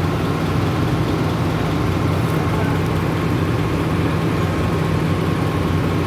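A large engine running steadily, a low-pitched drone with no separate knocks standing out.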